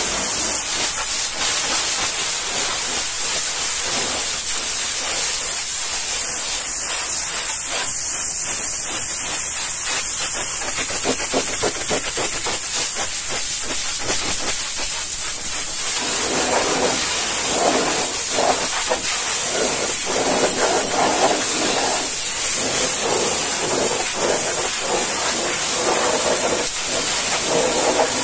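High-pressure washer jet spraying a truck's tyre and wheel rim: a steady, hard hiss of water. About halfway through, a fuller spattering sound joins the hiss.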